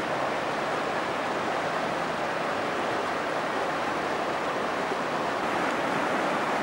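Steady rushing of river water flowing past the stone piers of a bridge, an even, unbroken noise.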